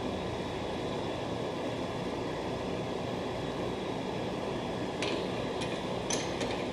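Steady background hum with a few faint clicks near the end from a bench vise being turned slowly to press a nylon gear onto a splined steel shaft.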